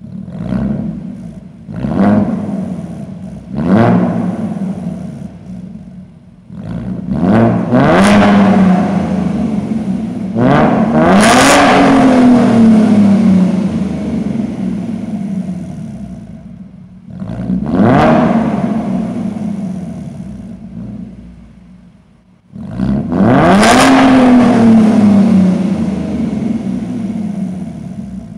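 The exhaust of a 2015 Ford Mustang V6 (3.7-litre) with its muffler deleted, revved at standstill: three quick throttle blips, then four longer revs, two of them held high for a couple of seconds, each falling back to a rumbling idle. The sound comes through a concrete parking garage.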